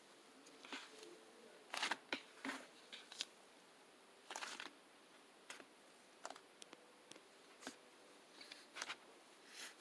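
Scattered light clicks and short rustles of small objects being handled close to the microphone, irregularly spaced, over a faint steady hum.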